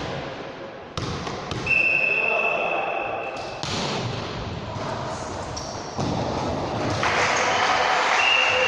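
Indoor ball game in a hall: a ball thudding on the floor several times amid players' voices. A referee's whistle sounds one long steady blast about two seconds in and starts again near the end.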